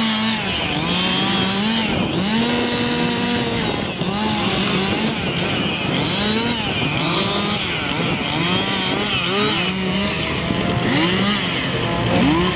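Several two-stroke chainsaws running at once, overlapping, each revving and then dropping in pitch as it bites into a log, over and over as the competitors cut.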